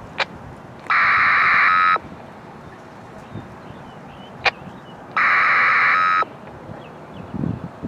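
An electronic buzzing tone sounds twice, each about a second long and some four seconds apart, and each comes a fraction of a second after a sharp click.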